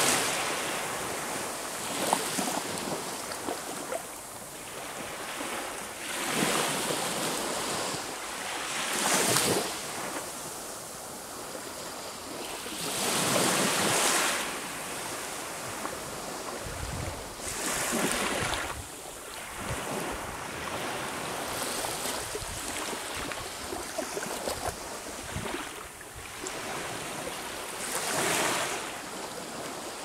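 Sea waves breaking on the shore: a continuous hiss of surf that swells into a rush about every four seconds as each wave comes in, then ebbs.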